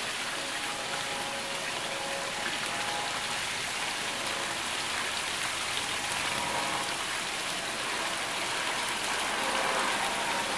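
Steady rushing noise like running water, even and unbroken, with no distinct knocks or clicks.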